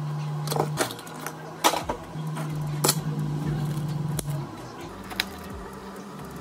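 Clear plastic dome lids pressed and clicked onto plastic drink cups, with a few sharp plastic clicks and taps over a steady low hum.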